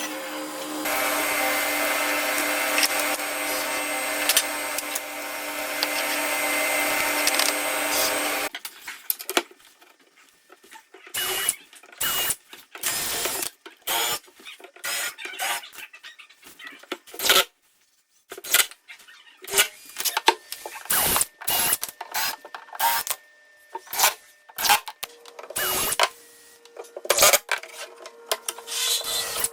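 A power tool running steadily for about eight seconds, then stopping, followed by many short bursts of tool work and knocks with brief pauses between them.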